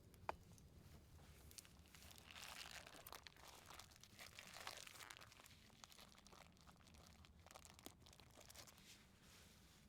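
Faint crinkling and rustling in irregular bursts, with scattered small clicks and one sharp click just after the start.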